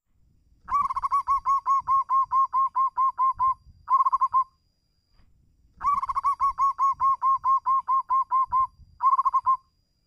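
Zebra dove (perkutut) cooing: two bouts of rapid repeated cooing notes, about four a second, each bout trailed by a short burst of a few more notes.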